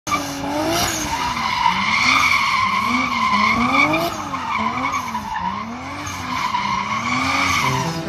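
Turbocharged Lexus IS300's 2JZ inline-six revving up and down over and over while the rear tires squeal steadily in a drift.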